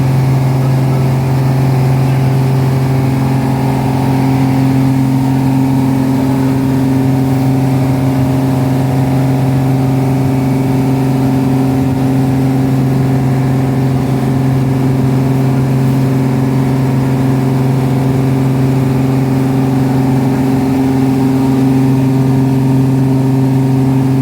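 A boat's engine running loudly at a steady speed, its even hum unchanged throughout.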